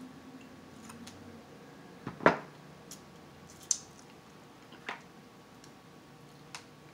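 Cooked crab-leg shells cracking as they are broken apart by hand, one sharp crack a little over two seconds in the loudest, followed by a few quieter clicks and wet mouth smacks as the meat is eaten.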